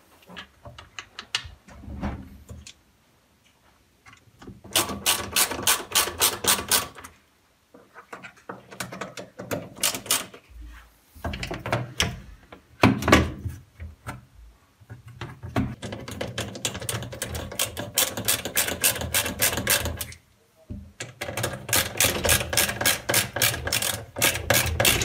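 A hand ratcheting screwdriver clicking rapidly, about six clicks a second, in four runs of two to four seconds, as screws are driven into the plastic sump and spray-arm mount of a dishwasher. A single knock comes about halfway through.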